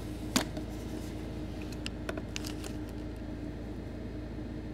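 Pause in the ISS downlink with the radio's squelch closed: a steady low hum inside the car, with a few light clicks, the first about half a second in.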